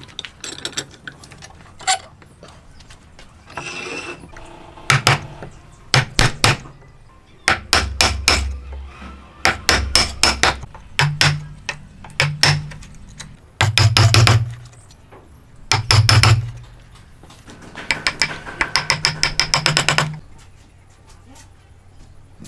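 Hammer blows coming in quick runs of several strikes, the fastest run near the end at about ten blows a second.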